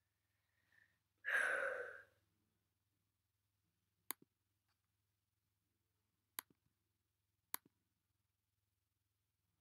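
A breathy exhale into the microphone about a second in, then three sharp computer mouse clicks, each a press followed at once by a softer release click, over a faint low hum.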